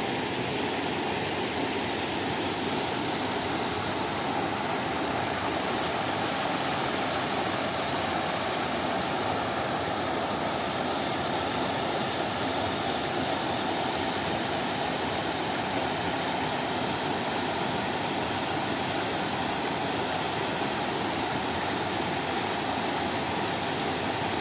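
Mountain stream rushing over boulders and small cascades: a steady, unbroken rush of water.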